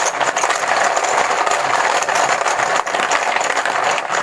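Small hard objects rattling and clattering together in a dense, unbroken stream of clicks, shaken continuously.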